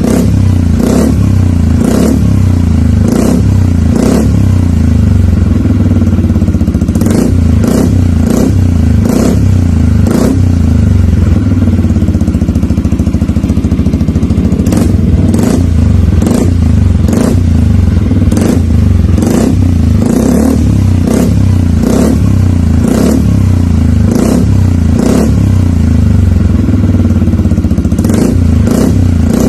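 Yamaha XMAX 250 scooter's single-cylinder engine running loud through a Burnout full-system aftermarket exhaust with a GP Long silencer. A steady low exhaust note is broken by short sharp bursts roughly once a second, with a smoother stretch around the middle.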